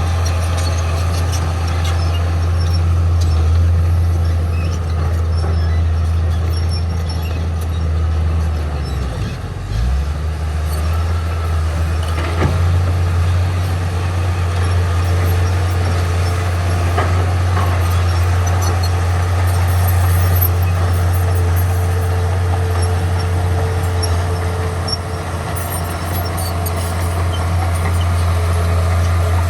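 Heavy diesel engine of an earthmoving machine running steadily under load, a deep low rumble that dips briefly about nine seconds in and then picks up again.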